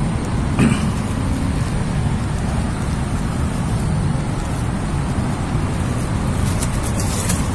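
Steady low rumble of road traffic, with a short knock about half a second in and a brief rustling crackle near the end.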